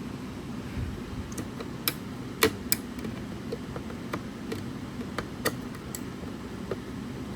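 A scattering of sharp clicks and taps, the loudest a few about two and a half seconds in, over a steady low hum: small plastic and metal parts of a speaker enclosure being handled during disassembly.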